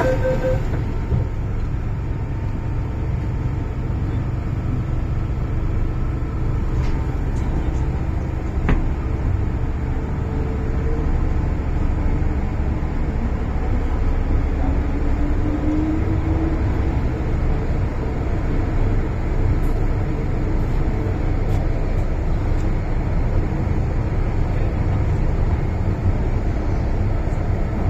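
Interior of an MTR Island Line M-Train in motion: a steady, loud low rumble of wheels and car body. Rapid electronic beeps stop right at the start, and a faint rising motor whine comes in about halfway through.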